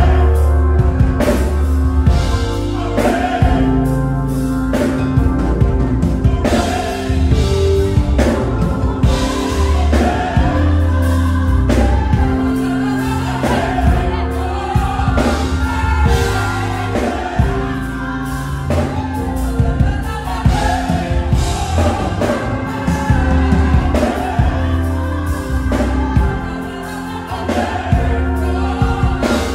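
Gospel choir singing in full voice, backed by a live band with a drum kit keeping a steady beat.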